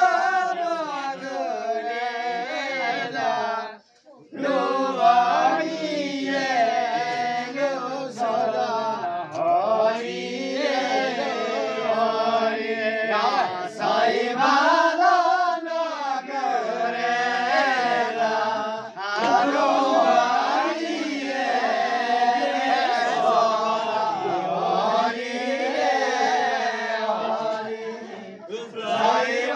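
A group of men singing a traditional Himachali Nati folk song together, with voices only and no drums, in long wavering phrases. The singing breaks off briefly about four seconds in.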